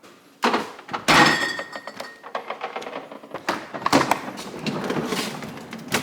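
Freezer being opened and rummaged through: a heavy sliding thunk about a second in, then repeated knocks, clatter and rustling of frozen packages.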